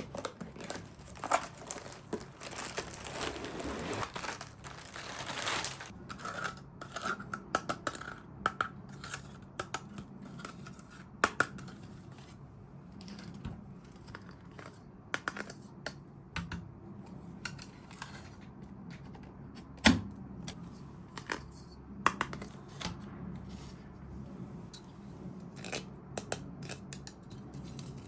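Unboxing handling sounds: plastic packaging tearing and crinkling for the first few seconds, then small plastic toy pieces clicking and tapping as they are handled.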